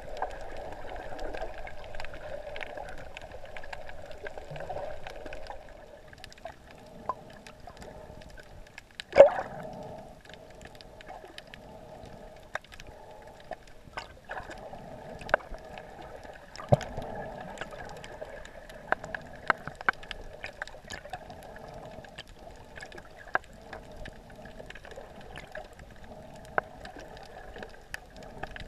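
Underwater ambience heard by a submerged camera: a steady, muffled water rush with many scattered sharp clicks, and one louder knock about nine seconds in.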